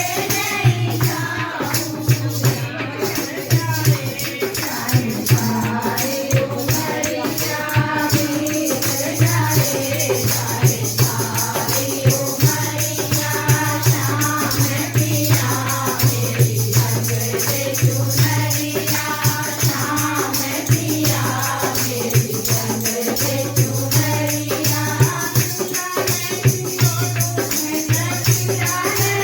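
Hindi devotional bhajan: singing over percussion with a steady beat and a continuous low drone.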